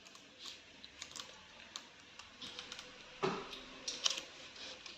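Pages of a paper recipe booklet being turned and handled: irregular light rustles and soft taps.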